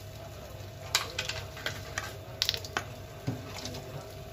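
A few light clicks and crinkles as chaat masala is taken up and sprinkled by hand over plastic plates, over a steady low hum.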